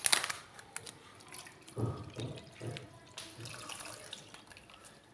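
Milk poured from a plastic milk packet into a bowl, glugging and splashing. The packet crinkles sharply at the very start.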